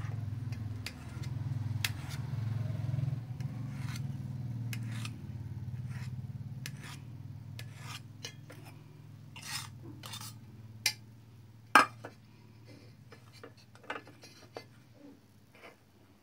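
A knife scraping and tapping on an enamel plate as sweet potato is cut into cubes: irregular scrapes and clicks, the sharpest about twelve seconds in. Under it a low steady hum, loudest in the first half, fades away.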